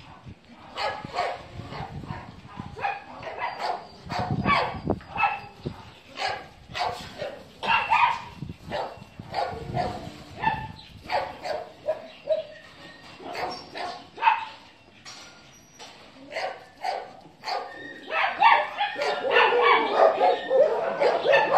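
Dogs barking over and over in short, separate barks, which crowd together and get louder in the last few seconds.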